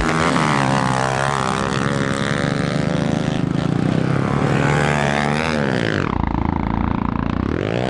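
Pit bike engines revving hard, several engine notes at once rising and falling with the throttle; about six seconds in the revs drop away, then climb again near the end.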